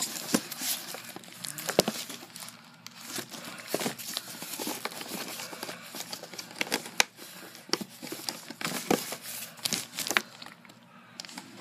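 Cardboard and plastic doll packaging crinkling and rustling with irregular crackles and a few sharp clicks as the doll is worked free of its box insert, quieter near the end.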